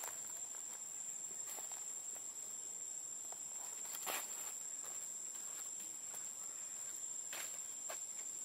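Steady high-pitched drone of insects, unbroken throughout, with a few short rustles or crackles on top, the loudest about four seconds in.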